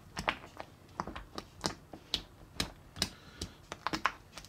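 Chocolate milk slime squelching and popping as a hand presses and kneads it on a plate: an irregular run of small sticky clicks and pops, several a second.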